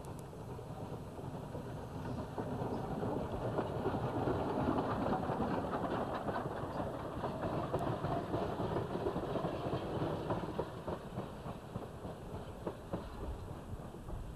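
2-8-0 steam locomotive No. 38 passing close by with its passenger coaches. The noise of engine and wheels grows louder, peaks about four to six seconds in, then eases as the coaches roll past with a run of clicks from the wheels on the rails.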